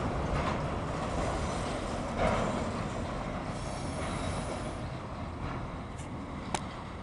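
Autorack freight cars rolling past, a steady rumble of wheels on rail that fades toward the end as the train's tail goes by. A faint high wheel squeal comes in near the middle, and two sharp clicks come near the end.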